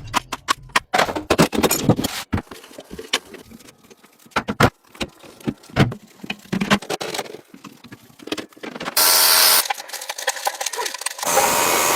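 A rapid, irregular run of sharp clicks and knocks, like tools and small parts being handled. There are two short bursts of hiss, one at about nine seconds and one near the end.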